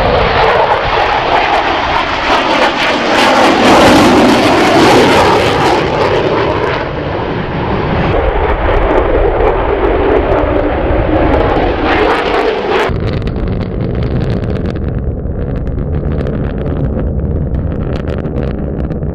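Loud jet engine noise from the Lockheed Martin F-22 Raptor's twin turbofan engines in flight, swelling to its loudest a few seconds in. About thirteen seconds in the sound cuts abruptly to a deeper, steadier engine noise.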